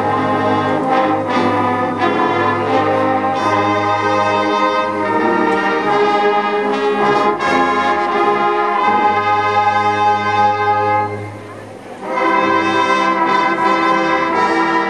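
High school marching band brass playing held chords over a low bass line. The music breaks off briefly about eleven seconds in, then the next phrase starts.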